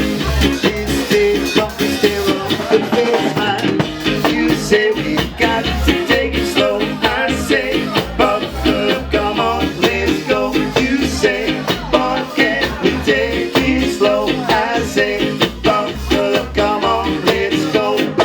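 Live ska band music: an upbeat rocksteady song played with a steady beat and regular bass notes.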